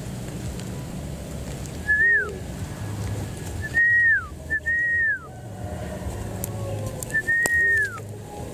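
Four clear whistled notes, each held high and then sliding down in pitch. The first comes about two seconds in, two follow close together around four to five seconds, and the last comes near the end.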